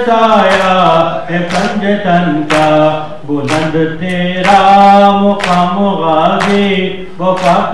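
Voices chanting a nauha, a Muharram lament, in long held notes, with a sharp slap about once a second from rhythmic chest-beating (matam).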